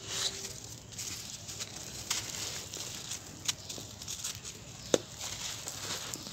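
Damp sand-cement clumps squeezed and crumbled by hand, a gritty crunching with falling grains pattering down. Several sharp crackles cut through it, the loudest about five seconds in.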